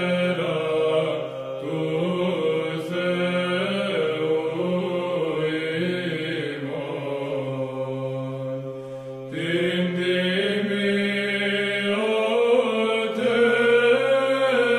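Orthodox chant: voices singing a slow melody over a held low drone note.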